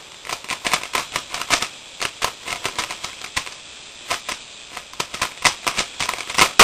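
3x3x3 Rubik's Cube being turned fast during a speedsolve: quick, irregular plastic clicks and clacks several a second, with a loud sharp clack at the very end.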